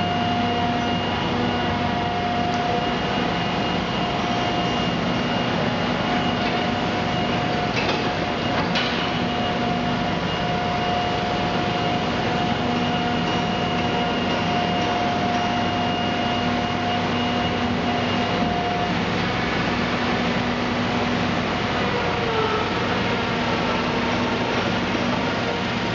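Mud Hog 10 cu ft paddle mixer running steadily while tipped to discharge epoxy polymer concrete, with a steady whine that cuts out about three-quarters of the way through.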